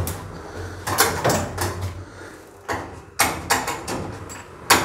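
Clicks and knocks inside an Alexlift elevator car, the push buttons of its stainless control panel being pressed among them, over a low hum.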